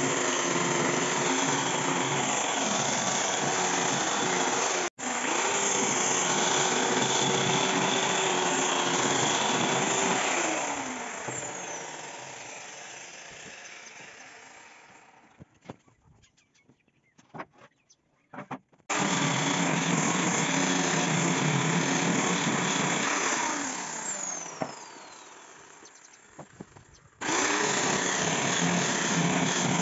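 Electric angle grinder with a sanding disc, running at full speed while sanding wood. It is switched off about a third of the way in and its whine falls as it spins down. After a near-quiet stretch with a few clicks it runs again, spins down a second time, and starts up once more near the end.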